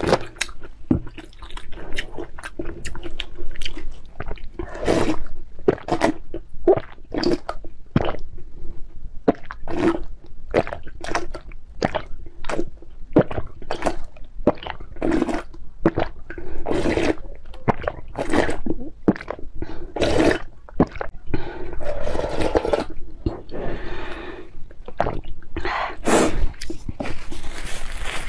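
Close-up eating sounds: slurping and gulping red chili noodle broth straight from a glass bowl, with wet chewing and mouth noises, a quick run of many short sounds and a few longer slurps.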